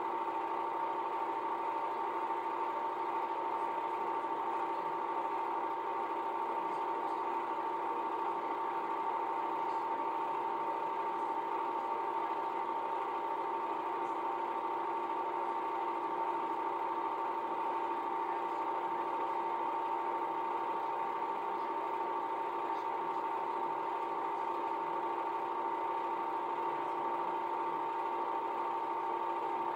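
Home-movie film projector running: a steady mechanical whir with a constant hum.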